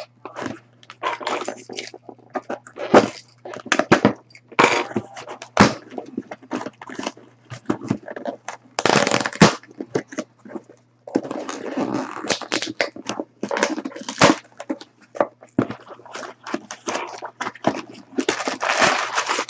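Cardboard shipping box being opened by hand: irregular rips and scrapes of the tape and cardboard flaps being pulled open, then crumpled brown kraft packing paper rustling and crackling near the end.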